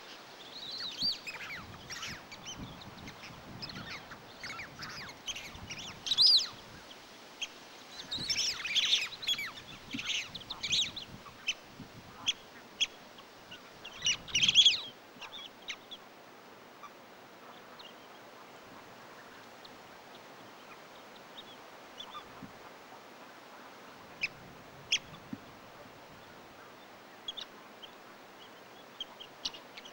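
Geese and ducks calling: a busy run of high honking and quacking calls through the first half, with a few louder calls, thinning to scattered short calls in the second half.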